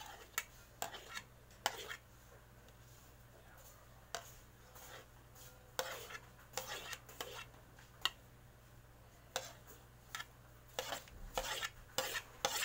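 Scattered light clinks, taps and short scrapes of a spoon against ceramic bowls and a plate as chopped garlic, onion and leeks are scraped onto minced chicken.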